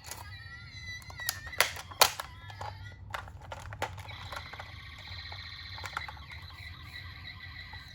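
Sharp plastic clicks and knocks from a toy ambulance minicar being handled. From about four seconds in comes a steady electronic tone with several overtones, under a faint low hum.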